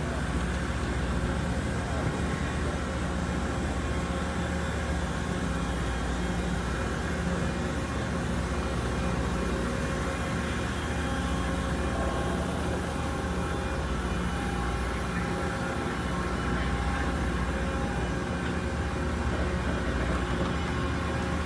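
Loram rail grinder running: a steady machine drone with a low engine hum, many held tones and a hiss above, unchanging throughout.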